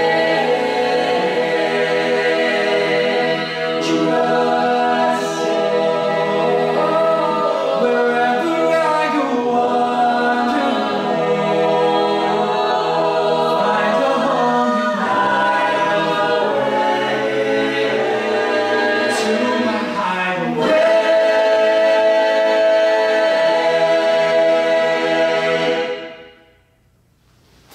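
Collegiate a cappella group singing in close multi-part harmony, ending the song on a long held chord that cuts off sharply near the end.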